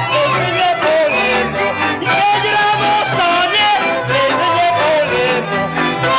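Slovak folk string band playing a lively dance tune, led by fiddles with ornamented, wavering melody lines over a quick steady beat.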